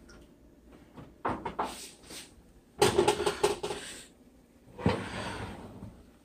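Oven door and wire oven rack clattering as the rack holding a cast-iron skillet is pulled out, a louder metal rattle with a ringing tone about three seconds in, then one heavy thud about five seconds in.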